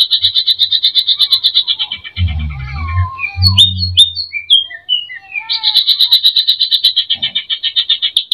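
Greater green leafbird (cucak ijo) singing a song full of mimicked phrases: a fast, even rattling trill. About two seconds in it breaks into a run of varied sliding whistles over a low rough buzz, and the trill returns about five and a half seconds in.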